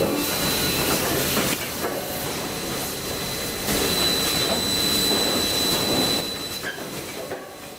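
Sawmill sawing machine cutting wooden panels into small bars: a steady noisy rush of sawing with a thin high whine through it, dying down near the end.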